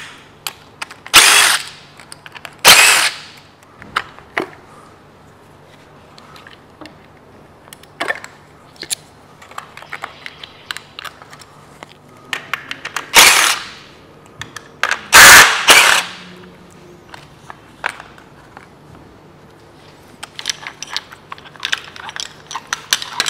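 A cordless DeWalt drill-driver with a socket runs in short bursts, undoing bolts on a Kia/Hyundai V6 cylinder head: twice in the first few seconds and twice more around the middle. Between the bursts come small clicks and clatter as parts are handled, over a steady low hum.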